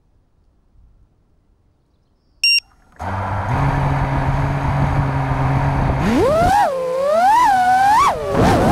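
Near silence, then a short high beep about two and a half seconds in. Half a second later an FPV freestyle quadcopter's motors spin up to a steady idle whine. About six seconds in the throttle comes up and the motor-and-propeller whine swoops up and down in pitch.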